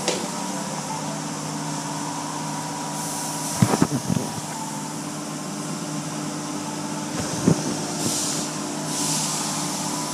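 Automatic car wash heard from inside the car's cabin: machinery hums steadily while water sprays against the windows. The wash brushes thump on the car about four seconds in and again past seven seconds, and the spray hisses in two louder bursts near the end.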